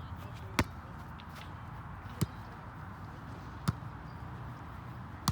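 A volleyball struck by hands four times in a rally, sharp smacks about a second and a half apart, over a steady low rumble of wind on the microphone.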